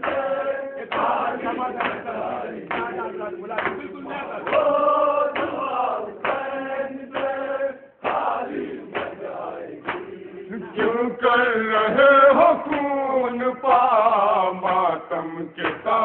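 A man chanting Urdu mourning verse in a melodic recitation, with short breaks between lines and a brief pause about halfway through.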